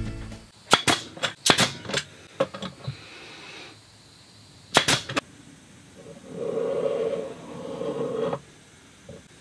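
Nail gun firing into plywood: a quick series of sharp shots in the first two seconds, then three more about five seconds in. Near the end a steady buzzy tone sounds for about two seconds, with a short break.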